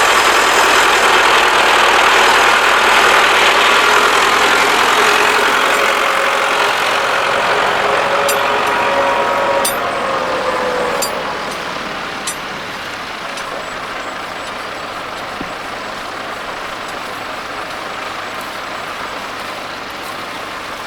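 A tractor engine running close by, then fading away about halfway through as it moves off, leaving a steadier, quieter engine noise. A few sharp clicks come just before it fades.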